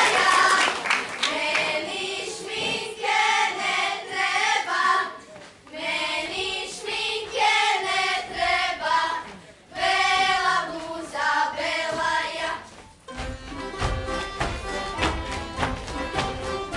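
Applause dies away as a group of girls sings an unaccompanied Croatian folk song in short phrases with brief pauses between them. About thirteen seconds in, instrumental folk music with a bass line starts up.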